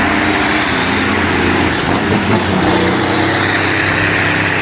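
Diesel engine of a Mack R600 log truck running steadily under load, hauling timber over rough ground.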